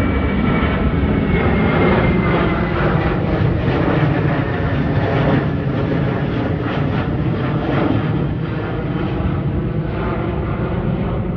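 Boeing 737 jet airliner climbing out overhead after takeoff: loud, steady jet engine noise with a faint thin whine that falls in pitch over the first couple of seconds, growing slightly fainter near the end as the plane moves away.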